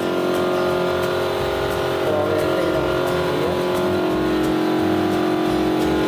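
Paint spray gun hissing as it sprays finish, over the steady hum of the air compressor that feeds it.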